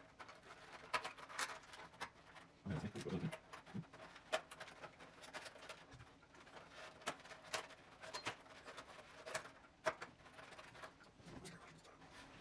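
Faint, scattered small clicks and taps of punched-out cardboard 3D puzzle pieces being handled and pressed into a stadium model, with a short low murmur about three seconds in.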